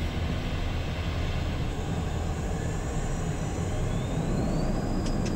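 Twin Pratt & Whitney PW615F turbofans of a Cessna Citation Mustang heard from inside the cockpit: a steady low rumble and hiss, with a thin whine that rises about three and a half seconds in and then holds as thrust is brought up for takeoff.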